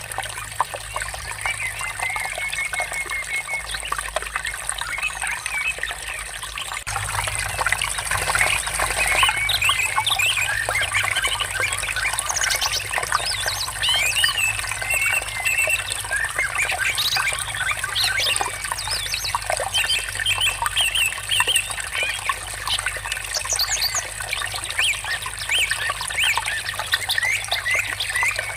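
Water trickling steadily with many small birds chirping and twittering over it. The birdsong grows busier after a few seconds.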